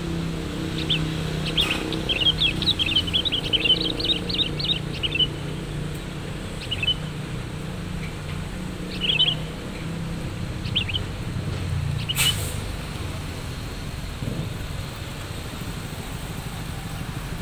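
Small birds chirping in quick runs of high notes, densest in the first few seconds and then in short scattered bursts, over the steady low hum of idling vehicle engines. A single sharp click about twelve seconds in.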